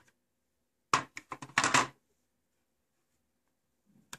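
Plastic case of a ZTE ZXDSL 831 DSL modem being pried open: a quick run of sharp plastic clicks and snaps with some scraping about a second in, then a single light clack near the end.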